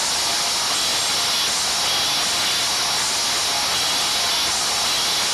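A steady, loud hiss of noise that does not change, with no clear tone or beat in it.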